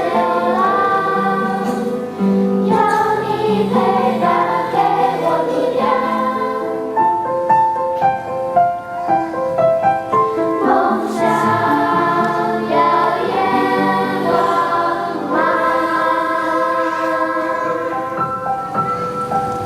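A choir singing in held notes that shift from chord to chord.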